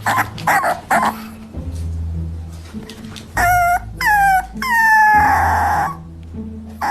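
A dog giving a few short yips, then three high-pitched whining cries that each fall in pitch, about three and a half seconds in.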